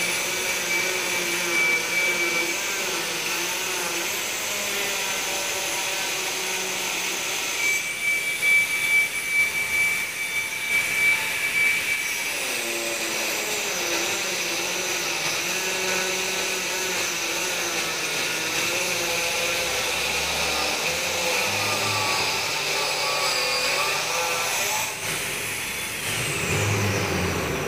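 A motor running steadily with a whirring hum, its whine wavering up and down in pitch, and a high thin tone coming and going.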